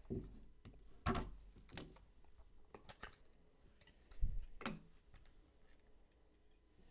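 Hard clear plastic card case being handled and opened: a series of short plastic clicks and taps, with a soft dull thump about four seconds in.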